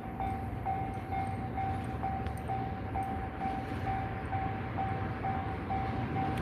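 Japanese level-crossing warning bell ringing its repeating single-tone ding, a little over two strokes a second, while the barriers are down. A continuous low rumble runs underneath.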